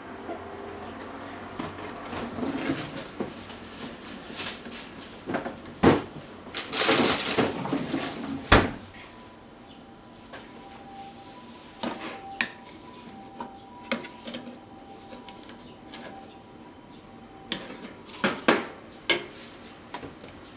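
A metal measuring spoon clinking and knocking against a plastic measuring jug as seasonings are measured in, with a couple of seconds of louder noise about seven seconds in and scattered knocks after.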